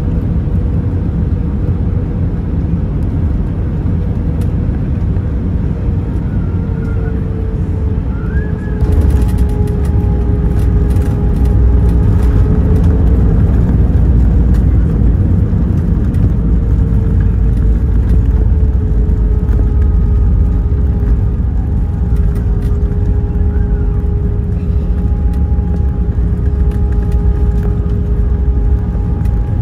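Airbus A320 cabin noise on the landing: a steady rumble of engines and airflow with faint steady whines. About nine seconds in there is a sudden jolt with rattling, taken to be touchdown, and after it the rumble is louder for several seconds as the plane rolls out on the runway.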